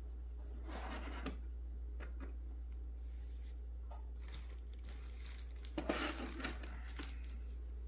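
Faint handling sounds of small loose screws and plastic washers being picked up and gathered by hand: light clicks and rustles, with a short louder cluster about a second in and another about six seconds in, over a steady low hum.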